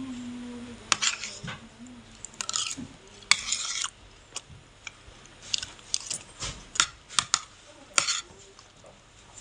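Metal spoon scraping and clinking against a plate in short, irregular strokes as rice is scooped up.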